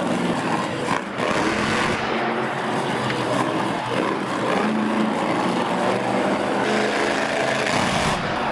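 Monster truck engines revving hard through wheelies, the pitch swelling and dropping with the throttle.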